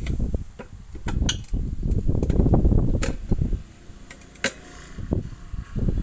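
Steel tyre levers prising a tractor front tyre's bead over its steel rim by hand: a few sharp metal clinks over low scuffing and scraping of rubber and rim.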